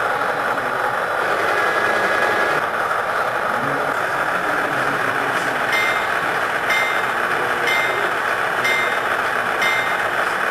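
Model diesel locomotive's onboard sound idling steadily through its small speaker while the train stands still. About six seconds in, a bell starts ringing about once a second.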